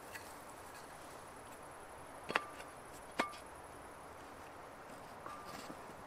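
Two sharp chops of a blade into wood a little under a second apart, each with a short ringing note, followed by a few faint knocks near the end.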